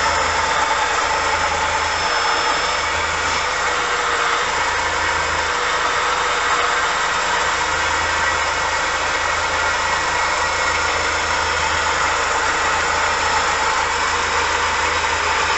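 Home-built high-speed lathe headstock spinning fast under power, belt-driven by a 24-volt motor on a variable-speed controller: a steady whirring whine of motor, belt and spindle.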